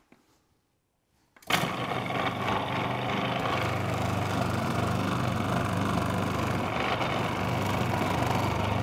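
Sage Kitchen Wizz Pro food processor's motor starts suddenly about a second and a half in and runs steadily, its variable slicing disc cutting a courgette into 0.5 mm slices.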